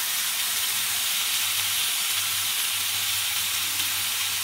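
Chicken thighs frying in oil in a frying pan, a steady sizzle.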